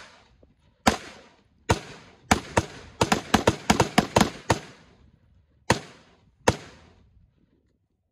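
Rifle firing about fifteen shots, each with a short echo: a few spaced shots, then a quick string of about ten in a second and a half, then two more spaced shots.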